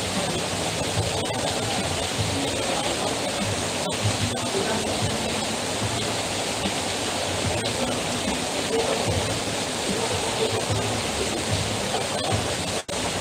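Heavy rain falling steadily, with water streaming off the edge of a roof canopy: an even, unbroken hiss, with a momentary dropout near the end.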